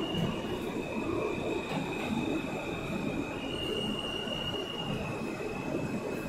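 New York City subway train running through a tunnel, heard from inside the car: a steady rumble of wheels on the track with a thin, high wheel squeal that steps slightly up and down in pitch a few times.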